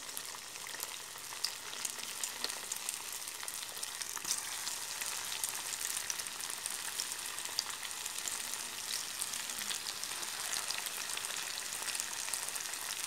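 Maggi noodle pakoras deep-frying in hot oil in a kadai: a steady sizzle with many small scattered pops and crackles.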